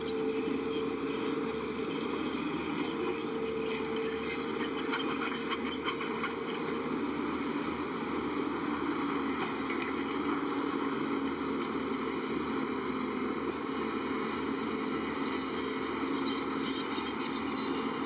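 Heavy diesel earthmoving machinery running steadily, its engine pitch dropping partway through, with a brief clatter about five to six seconds in.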